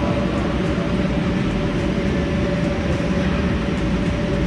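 Electric air blower running steadily, a loud even drone with a constant hum.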